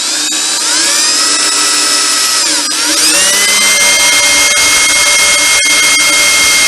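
Electric drill boring a pilot hole into a broken exhaust manifold flange bolt for a bolt extractor. The motor whine climbs as it spins up, sags briefly about two and a half seconds in, then rises again and holds steady.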